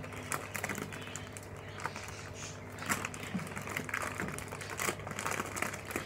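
A plastic flour bag crinkling as flour is shaken out of it into a bowl of dough, in scattered crackles that get busier after about three seconds.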